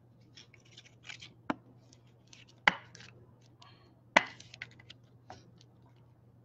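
Trading cards in clear plastic sleeves and holders being handled: soft rustling and sliding with three sharp clicks, the loudest about two and a half and four seconds in.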